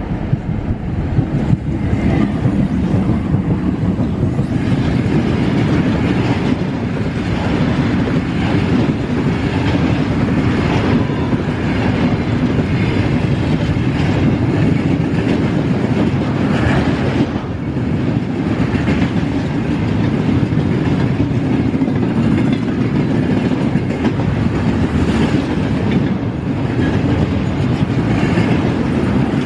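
Train running on rails: a steady, loud rumble with rapid wheel clatter.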